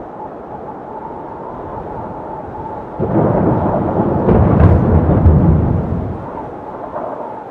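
A steady rushing noise with a faint high hum. About three seconds in a deep rumble comes in suddenly, swells, and dies away again after about six seconds.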